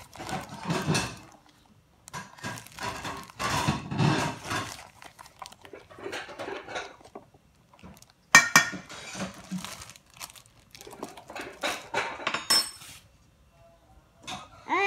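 A wire balloon whisk stirring dry flour and cornstarch in a stainless steel mixing bowl, its wires scraping and clinking against the metal in irregular bursts, with one sharp clink about eight seconds in.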